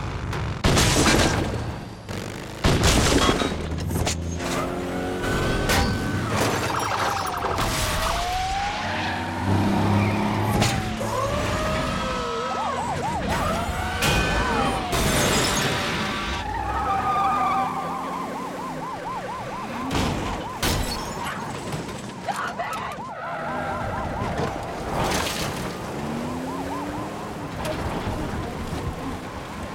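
Chase-scene sound mix: emergency sirens wailing and switching to a fast yelp over vehicle engines, with two loud crashes in the first few seconds.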